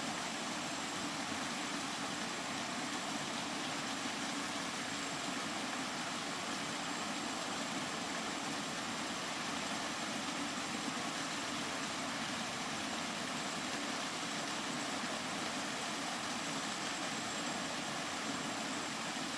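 Steady rain, an even unbroken hiss with no separate drops or thunder standing out.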